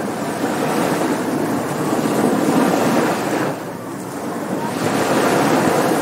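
Surf breaking and washing up a beach: the wash swells over the first three seconds, eases off briefly, then builds again about five seconds in.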